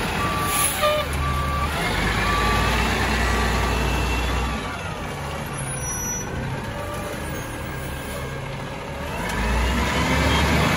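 Peterbilt 320 garbage truck with a Bridgeport Ranger side-loader body backing up, its reversing alarm beeping about once a second for the first few seconds, with a short air hiss about half a second in. The diesel engine runs under it and revs louder near the end as the truck pulls forward.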